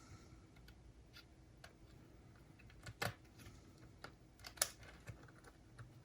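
Faint, scattered clicks and light taps of small hand tools working a MiniDisc mechanism apart to free the laser sled. The two sharpest clicks come about three seconds in and again a second and a half later.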